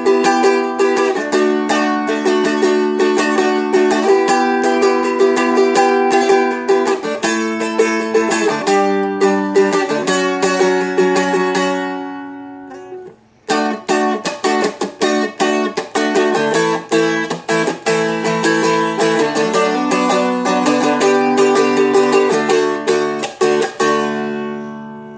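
Seagull Merlin, a small four-string strummed dulcimer-style instrument, playing chords in a quick rhythmic strum with sharp percussive strokes. About halfway the strumming rings out and stops for a moment, then starts again, and it rings out once more near the end.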